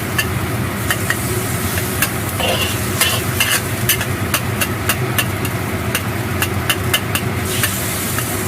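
Seasoned minced-pork sauce boiling and sizzling in a wok while a metal spatula clicks and scrapes against the pan many times, over a steady low hum.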